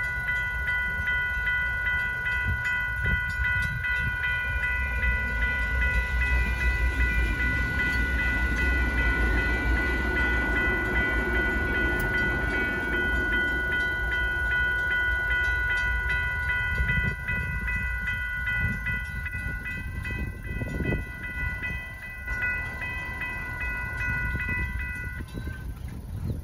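Railroad crossing bells ringing steadily, stopping a little before the end as the crossing clears. In the middle a SacRT light rail train passes through the crossing with a low rumble.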